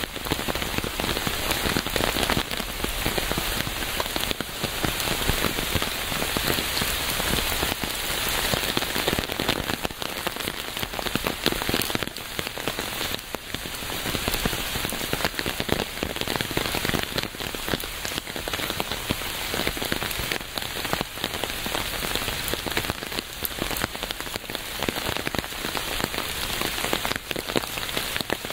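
Steady rain, dense patter of many drops falling on a surface.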